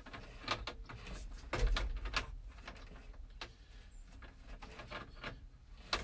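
Scattered small clicks and light knocks of needle-nose pliers working at the mechanical oil pressure line fitting behind a 1972 Chevy pickup's gauge cluster, with a duller thump about a second and a half in.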